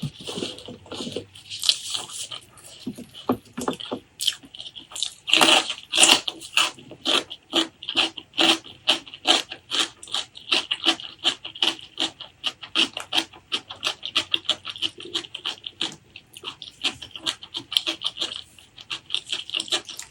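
Close-miked open-mouth chewing of a mouthful of pork leg curry and rice: rapid wet smacking, about three to four smacks a second, loudest through the middle.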